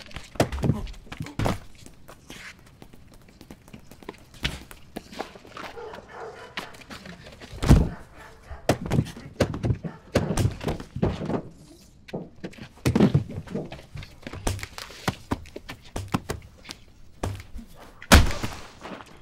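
Punches and body blows landing in a fist fight: a rapid, irregular string of thuds, with two especially hard hits, one about eight seconds in and one near the end.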